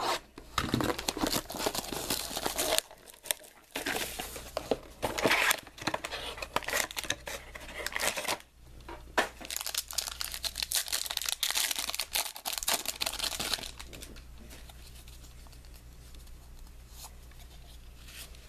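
Plastic wrapping on a box of trading cards being torn open and crumpled, crinkling in irregular bursts for about fourteen seconds, then quieter handling of the cards near the end.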